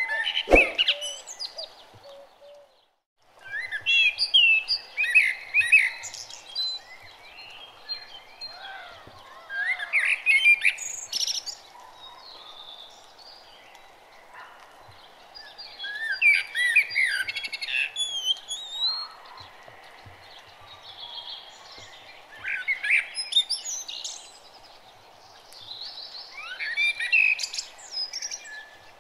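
Birds chirping and singing in short bursts every few seconds over a steady background hum. A sharp click comes just after the start, and the sound drops out briefly about three seconds in.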